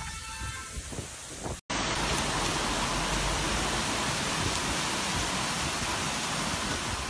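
Torrential rain pouring down in a steady, dense hiss during a violent storm. After an abrupt break about one and a half seconds in, it comes back louder and stays even.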